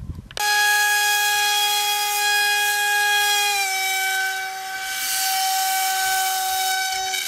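Electric motor and pusher propeller of a modified Radjet foam model jet run up to full throttle, held in the hand before launch. It starts suddenly as a loud, steady high-pitched whine with many overtones, and its pitch sags slightly about halfway through.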